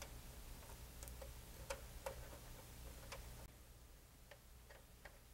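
Faint, irregular small clicks of a plastic wire nut being twisted onto electrical wires, over a low steady hum.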